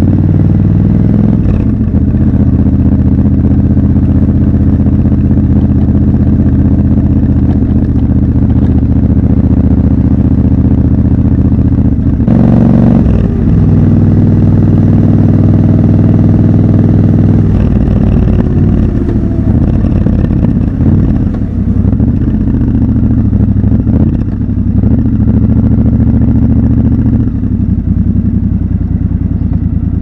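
Triumph Scrambler 1200 XC's 1200 cc parallel-twin engine running steadily under way, with a brief loud whoosh about twelve seconds in. In the last third the engine note drops and wavers as the bike slows.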